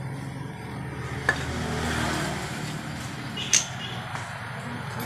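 Two sharp knocks from motorcycle front fork legs being handled while they drain their old fork oil, one about a second in and a louder one about three and a half seconds in, over a steady low hum.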